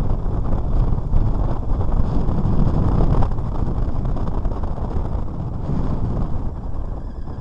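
Heavy wind buffeting on the microphone: a dense low rush and rumble that swells and eases without a clear pitch.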